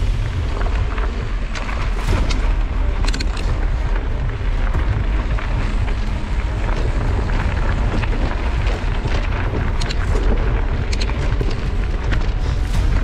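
Wind buffeting the microphone of a mountain bike's handlebar-mounted camera while riding a rough dirt trail: a steady low rumble with scattered knocks and rattles as the bike jolts over stones.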